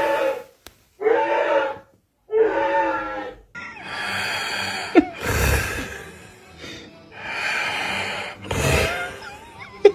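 A person snoring loudly in a run of harsh, rasping bursts, two of them with a deep rumble.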